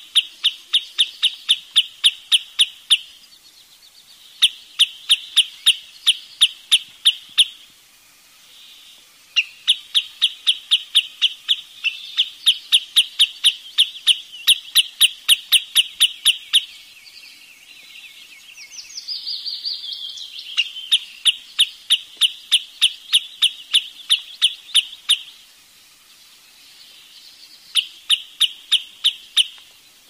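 Wood sandpiper calling: runs of sharp, high, evenly repeated notes, about five a second, each run lasting a few seconds with short pauses between. A different, falling call comes in briefly about two-thirds of the way through.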